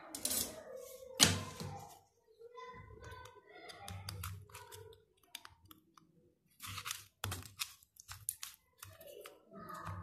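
A knife cutting a warm slab of peanut and chana chikki on a steel plate: irregular clicks, knocks and short scrapes as the blade pushes through the brittle, sugar-bound nuts and meets the plate. The sharpest knock comes about a second in, with a quick run of clicks in the second half.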